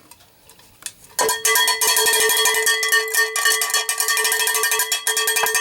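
A Zippo lighter's metal case being struck in a quick, continuous rattle, ringing steadily like a cowbell. It starts about a second in.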